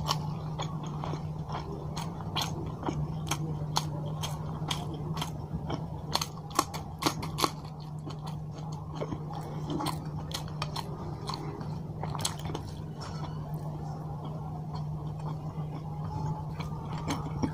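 Close-miked mouth sounds of a man eating rice and spicy fish curry by hand: wet chewing, lip smacks and crisp bites, with many sharp clicks that come most thickly about six to seven seconds in. A steady low hum runs underneath.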